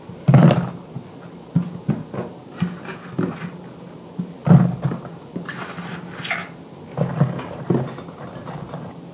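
Chunks of cut eggplant dropped and set by hand into a rice cooker's non-stick inner pot: a series of irregular dull knocks and thuds, the loudest about half a second in and again about four and a half seconds in.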